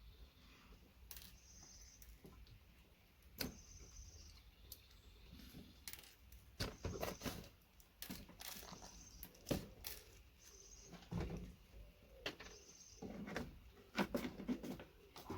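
Pliers working a VGA connector apart and the small gold-plated pins coming out: irregular metallic clicks, knocks and rattles of metal and plastic parts being handled, thicker in the second half.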